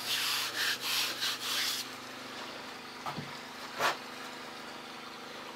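Four or five quick scratchy strokes of something rubbing along a weathered log wall, then a steady low hum with a couple of faint knocks.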